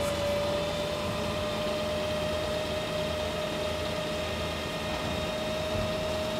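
Dumpster-grinder truck's machinery running steadily as the boom lifts the toothed grinding drum out of a roll-off dumpster: an even hum with one constant whining tone through it.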